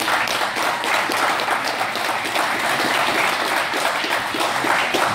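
A group of people applauding: dense, steady hand-clapping that starts all at once.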